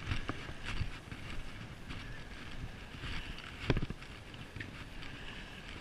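Wind buffeting a body-worn camera's microphone, a low rumble with hiss, with a few light knocks, the loudest about three and a half seconds in.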